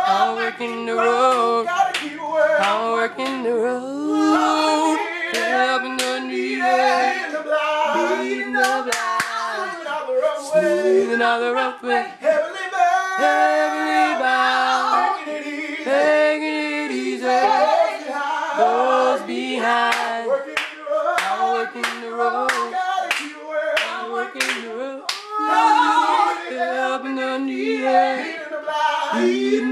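Gospel voices singing a cappella, with held notes and hand claps keeping time.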